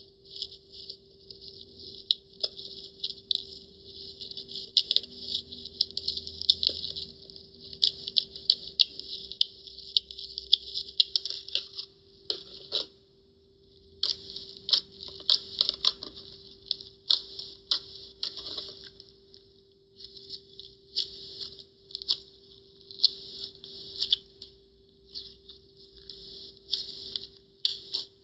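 Slime being squeezed, stretched and poked by hand, giving dense runs of small wet clicks and crackles, with brief pauses about twelve seconds in and again near twenty seconds. A faint steady hum runs underneath.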